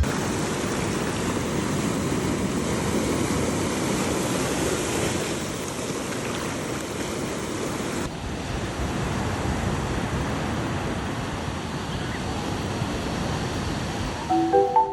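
Sea surf washing onto a beach in a steady rush of waves, with some wind on the microphone.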